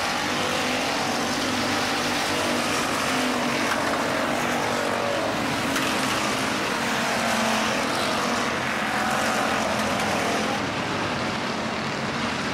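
IMCA Hobby Stock race cars running on the track: several engines at once, rising and falling in pitch as the cars go past.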